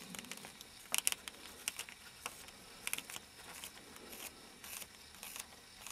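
A small carving knife paring thin slivers from a lime-wood chain link: faint, irregular little cuts and scrapes, the clearest about a second in and again near three seconds.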